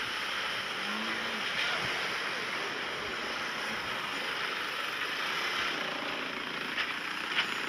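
Steady rushing noise of wind and ocean surf, with pickup trucks crawling in a line through soft beach sand.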